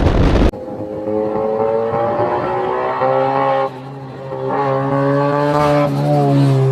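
Car engine running loud under load with a rush of noise, cut off sharply about half a second in. It gives way to a steady droning engine note made of several pitches that step and shift a few times.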